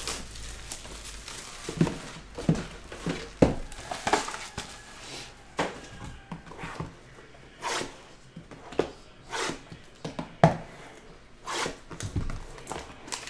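Plastic shrink wrap crinkling and tearing as it is stripped from a sealed cardboard box of trading cards. Irregular light knocks and taps come from the cardboard boxes being handled and set down on the table.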